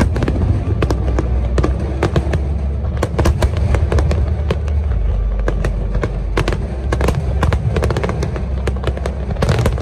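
Fireworks going off in rapid succession: many sharp cracks and pops over a continuous low rumble of bursting shells.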